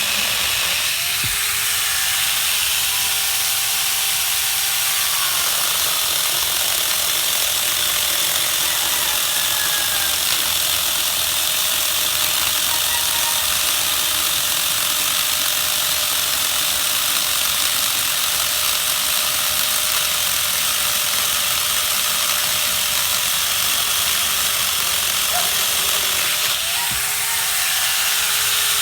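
Chainsaw running steadily as it cuts wood, with brief shifts in pitch about a second in and again near the end.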